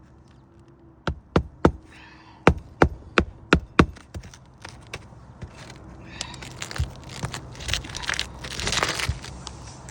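Hammer blows on an asphalt shingle roof during a shingle replacement: about eight sharp strikes in two quick runs in the first four seconds. Several seconds of scraping and rustling follow, like shingles being shifted.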